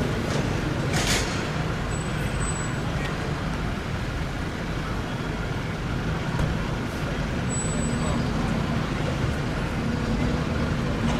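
City street traffic: steady engine and road noise, with a short burst of hiss about a second in.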